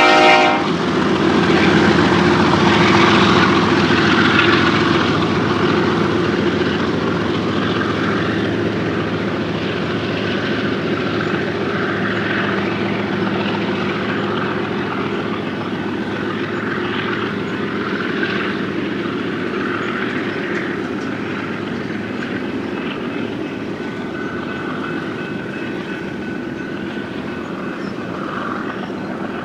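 A BNSF double-stack intermodal train rolling past. A horn blast cuts off about half a second in. The diesel locomotives' engine drone then fades as they move away, leaving the steady rumble and clatter of the well cars' wheels on the rails, slowly getting quieter.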